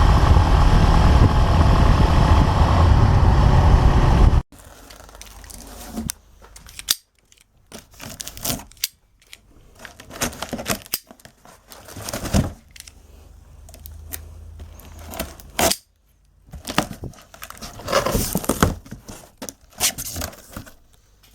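A loud, steady sound fills the first four seconds and cuts off abruptly. Then come irregular bursts of crinkling, tearing and rustling as the cardboard and plastic packaging of a motorcycle top box is cut and torn open.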